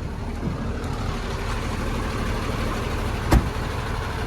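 Iveco dump truck's diesel engine running steadily, with one sharp knock about three seconds in.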